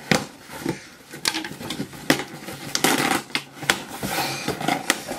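A pen point slitting the packing tape on a cardboard shipping box, then the flaps being pulled open: scraping, tearing and rustling cardboard with a string of sharp clicks and knocks.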